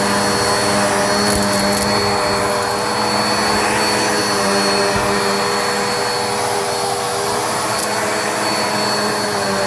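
Black & Decker Air Swivel upright vacuum running steadily with its brush roll spinning while it is pushed over the floor: an even motor drone with a thin high whine.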